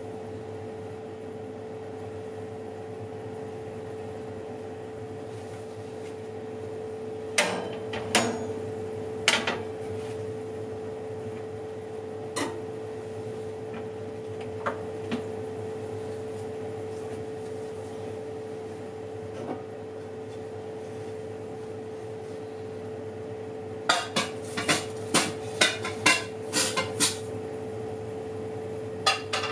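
Oven running with a steady hum and a single steady tone under it, while kitchenware clinks and knocks now and then off to the side. A quick run of clattering comes near the end.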